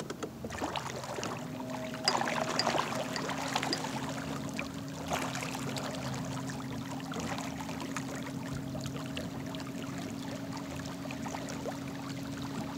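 Electric trolling motor on a kayak starting up about a second in, then running with a steady hum, over the sound of water churning and splashing, loudest a couple of seconds in.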